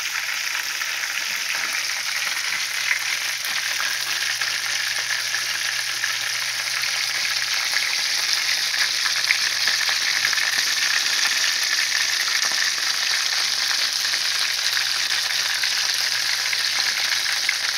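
Flour-dredged chicken drumsticks pan-frying in hot oil on the stovetop, sizzling and crackling steadily.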